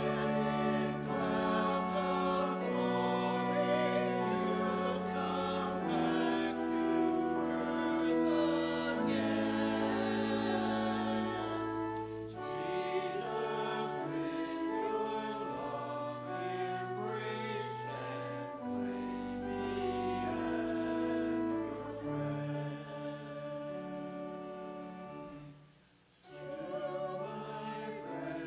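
Choir singing a slow, sustained sacred piece over instrumental accompaniment, with chords changing every second or two. The music breaks off for a moment near the end, then resumes.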